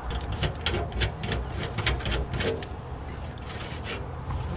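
Hand rivet-nut tool being worked in a hole in sheet steel: a quick run of small metallic clicks and scrapes during the first couple of seconds, then a brief hiss.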